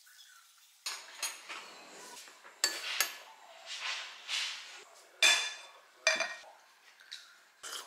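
Hot water poured from a kettle into a glass mug over a fruit tea bag, then a thin metal muddler stirring and clinking sharply against the glass several times. Near the end, dishes are set down on the table with a clink.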